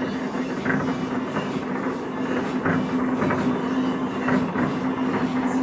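Fireworks going off in a continuous rumble of booms and crackles, with sharper reports about once a second. A steady low hum runs underneath.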